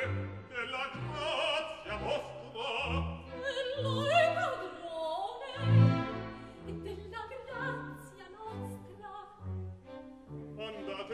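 Operatic singing with vibrato over an orchestra, with short low notes in the bass, from a live opera recording.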